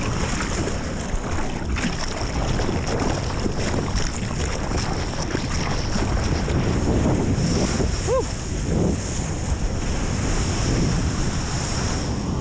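Surging whitewater splashing and rushing around a surfboard as a wave is caught and ridden, with wind buffeting the action camera's microphone.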